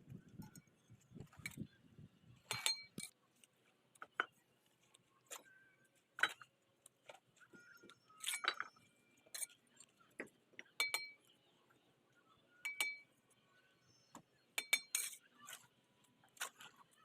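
Steel mason's trowel clinking and tapping against bricks and mortar as a wall is laid: sharp metallic taps that each ring briefly, at irregular intervals about a second or two apart.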